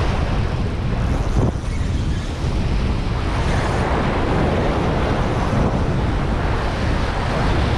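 Sea waves washing against a rocky shore, with wind buffeting the microphone: a steady rushing noise.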